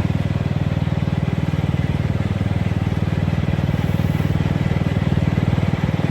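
Riding lawn mower engine running steadily under way, a fast, even pulsing hum at constant speed.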